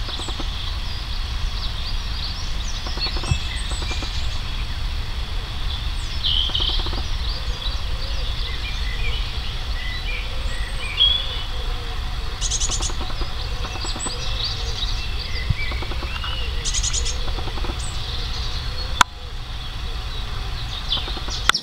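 Small songbirds chirping and warbling, with many short high notes scattered throughout and two brief dry rattling calls about four seconds apart, over a steady low rumble.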